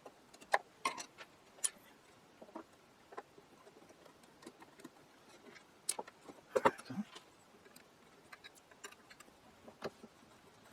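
A screwdriver slipping and clicking in a chewed-up screw head, making irregular small metallic clicks and scrapes, with the loudest cluster about six and a half seconds in. The driver is not gripping the worn slot.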